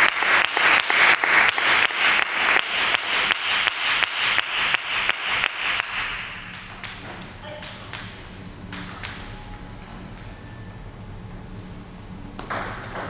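Spectators clapping for about six seconds after a table tennis point, then a quiet hall with a few sharp celluloid ball taps, and a rally's ball clicks starting near the end.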